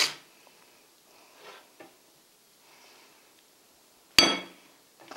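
A metal spoon scraping and knocking pureed meat off the metal blade guard of a switched-off stick blender: a short scrape at the start, a couple of light knocks, then one sharp ringing metal clink about four seconds in.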